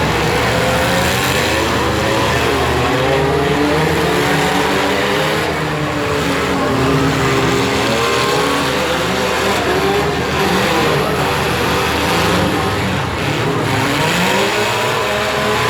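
Several compact-car engines revving and running at once in a demolition derby, their pitches repeatedly rising and falling as the cars accelerate and back off, over a steady din.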